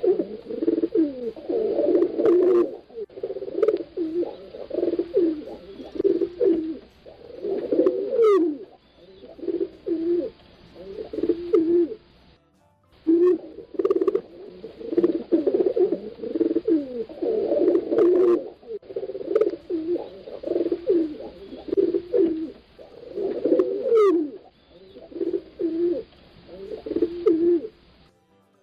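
Several pigeons cooing continuously, low overlapping coos that rise and fall, with a brief break about halfway through.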